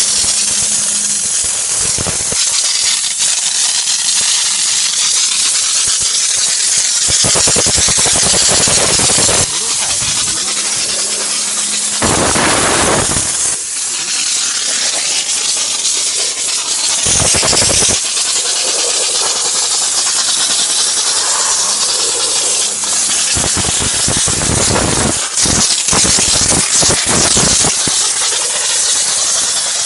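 High-pressure steam hissing from a mobile steam car washer's steam gun: a steady hiss with several louder, fuller surges lasting a second or two each.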